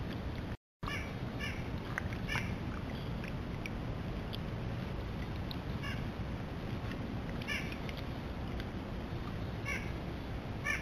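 Steady low rush of the creek, with short harsh animal calls in small clusters every second or two. The sound drops out for an instant just after the start.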